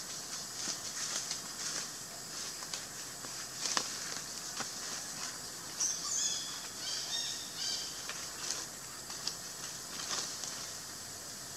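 Outdoor tree-canopy ambience: a steady hiss with scattered light clicks and rustles, and a bird's quick series of high chirps about six seconds in.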